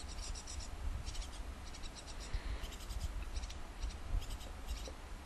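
Tit nestlings in a nest box giving high, thin begging calls, short clusters of rapid chirps repeated every half second to a second, over a steady low hum.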